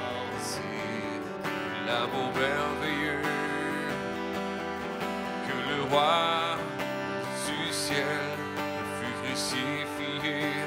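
Acoustic guitar strummed, with a man singing along; the voice swells loudest about six seconds in.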